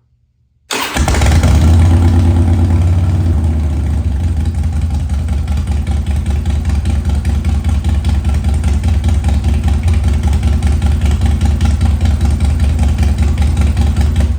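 Harley-Davidson 96-inch Twin Cam V-twin engine on a short exhaust starting up about a second in, catching at once, running a little faster at first and then settling into a steady, loping idle on its freshly replaced idle air control valve. It is switched off right at the end.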